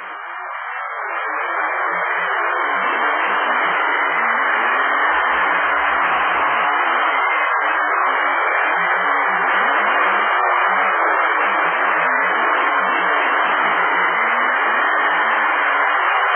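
Loud, steady hiss-like noise that swells over the first two seconds, holds, and cuts off suddenly near the end.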